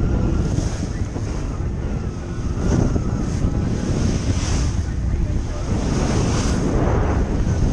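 Wind buffeting the microphone over the rush of water along a sailboat's hull as it beats into wind and chop, with waves breaking against the bow in surges of spray about every two seconds.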